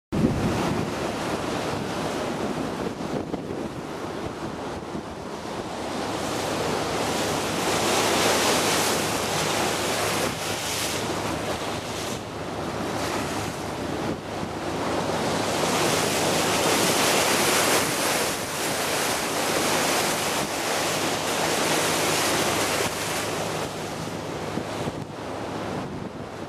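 Wind buffeting the microphone over sea water rushing and splashing along a boat's bow, swelling and easing every several seconds, with a low steady hum beneath.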